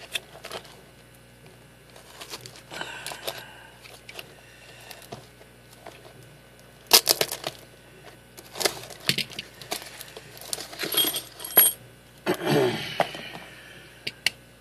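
A parcel being unpacked by hand: packaging rustling and tearing, with scattered sharp clicks and knocks of small hard objects, louder near the end.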